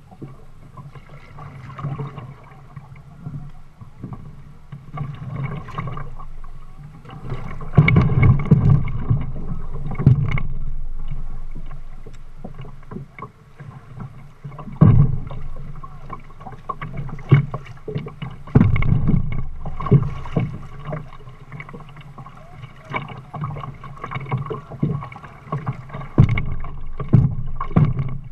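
Water slapping and splashing against a plastic kayak hull under way on a shallow river, with irregular knocks on the hull every second or so.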